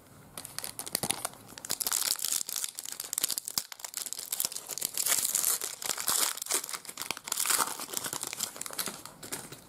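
Foil trading card pack wrapper crinkling and tearing as it is opened, a dense crackle of many small crinkles.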